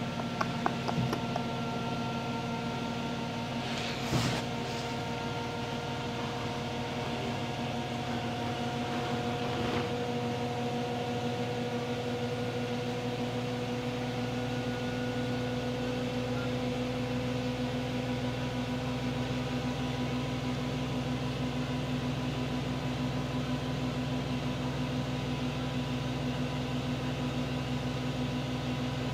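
A steady mechanical hum made of several fixed tones, with a few light clicks at the start and a short rustle about four seconds in.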